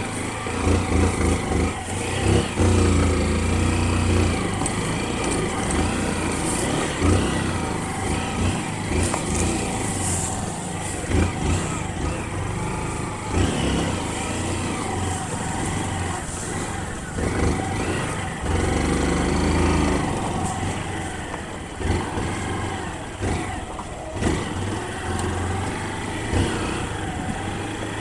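Motorcycle engine running while riding a dirt trail, its low note swelling and easing off repeatedly over a rough, noisy background.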